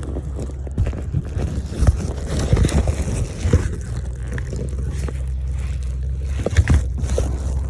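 Heavy diesel engine of earthmoving machinery running steadily at a low pitch, with scattered knocks and clanks.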